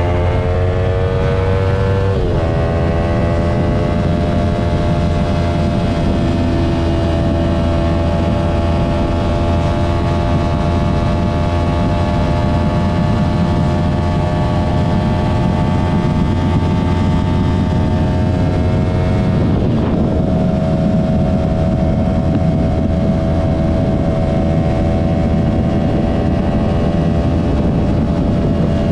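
Yamaha R3 parallel-twin engine through an M4 Street Slayer slip-on exhaust, under way and pulling steadily with its pitch creeping up. It upshifts about two seconds in and again near the twenty-second mark, each shift a sudden drop in pitch. Wind noise rumbles underneath.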